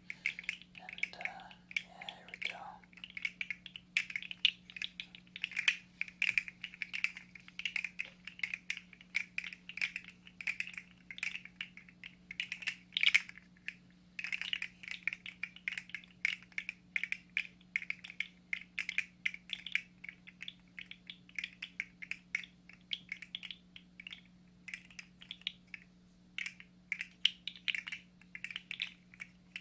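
Rapid, irregular plastic clicking and rattling of a 3D-printed articulated fidget slug toy being flexed and fidgeted in the hands, over a steady low hum.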